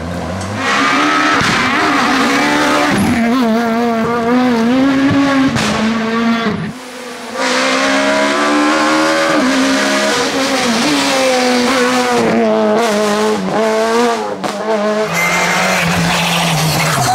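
Rally cars' engines revving hard through corners, the pitch rising and falling again and again with gear changes and lifts of the throttle, in several separate passes cut together; the sound drops briefly about seven seconds in, and a steadier, lower engine note comes in near the end.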